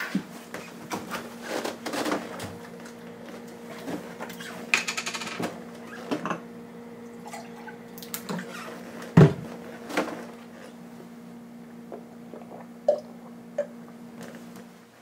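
Kitchen handling sounds: a refrigerator door opened, glassware clinking and a drink poured into a glass, with a sharp knock about nine seconds in. A steady low hum runs underneath.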